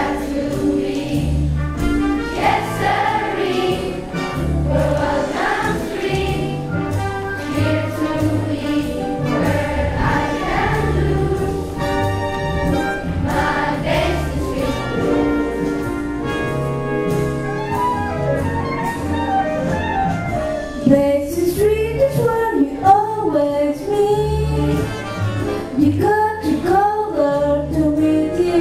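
Children's choir singing a jazz song over an accompaniment with a steady bass line. About two-thirds of the way through, a single solo voice comes to the fore over the accompaniment.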